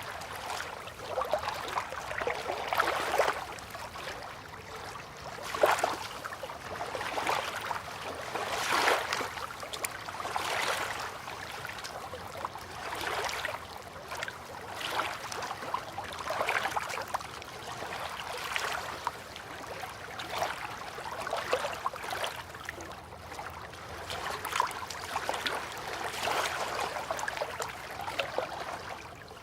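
River water lapping and trickling at the bank, in small irregular swells that come every second or two.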